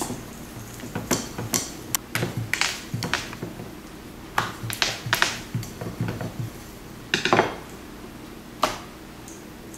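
Wooden rolling pin clicking and knocking against a wooden board as naan dough is rolled out, in irregular clusters of sharp knocks, with a last few clatters near the end.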